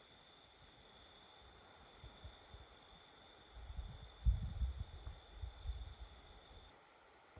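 Night insects, crickets, trilling steadily in a high, pulsing chirr that stops near the end. Low rumbling thuds come in around the middle.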